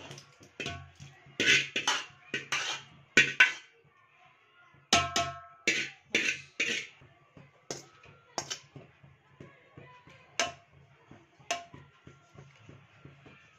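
Steel serving spoon scraping and clanking against aluminium cooking pots while korma is ladled over rice and the rice is spread. The clanks ring briefly. They come thick and fast at the start and again about five seconds in, then thin out to single knocks.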